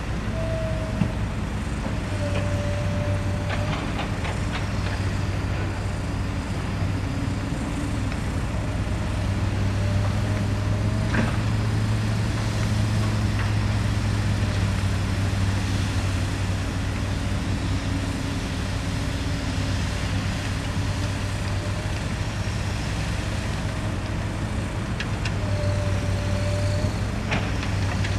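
Diesel engines of dump trucks and a crawler excavator running steadily with a deep hum, while a brief whine comes and goes several times. A few sharp metallic knocks stand out, about four seconds in, near the middle and near the end.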